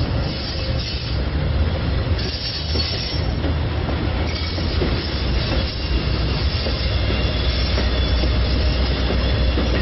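Bilevel stainless-steel commuter coaches rolling past: steel wheels on rail make a steady low rumble.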